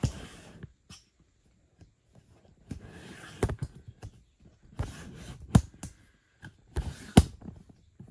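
Handling noise as a diamond painting canvas and kit contents are moved about: bursts of rustling with several sharp knocks, the loudest near the end.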